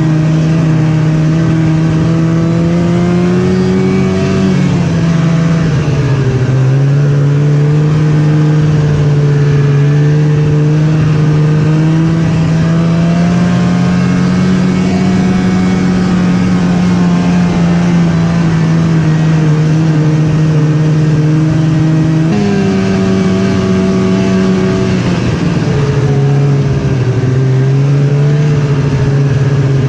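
Snowmobile engine running under way, its pitch mostly steady. The pitch dips about five seconds in, jumps up sharply about twenty-two seconds in, then drops back a few seconds later as the throttle changes.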